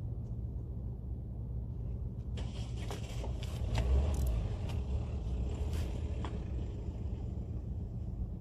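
Steady low rumble, with a few seconds of irregular clicks and scrapes in the middle as a fishing rod and its tackle are handled at a rod tripod.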